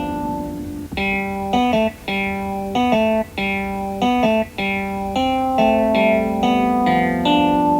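Transformation-belt standby music looping: a plucked, guitar-like melody over held low notes, played in short repeating phrases with brief gaps between them.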